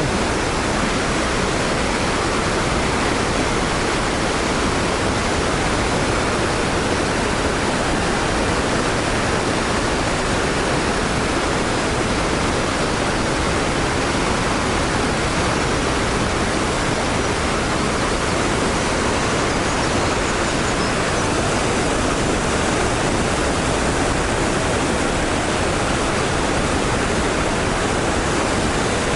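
Kegon Falls, a large waterfall, making a loud, steady rushing noise with no breaks.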